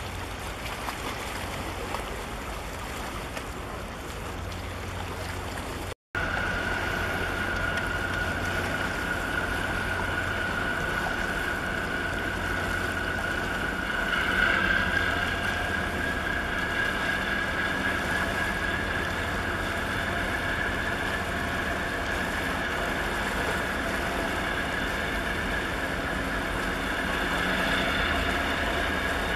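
Low engine rumble and water wash from a large container ship moving through the harbour. After a brief dropout about six seconds in, a steady high-pitched whine joins the rumble while a tug works alongside, pushing at the ship's bow.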